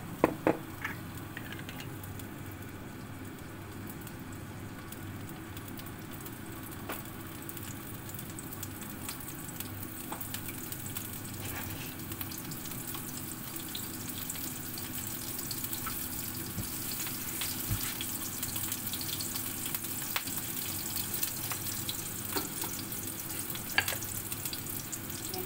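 Cooking oil sizzling in a frying pan over a gas flame, a steady hiss that slowly grows louder as the oil heats. A few sharp knocks of the pan come in the first second.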